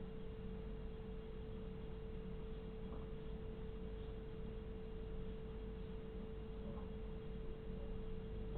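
A steady single-pitched hum that never changes, over a faint low rumble and hiss. Nothing else stands out.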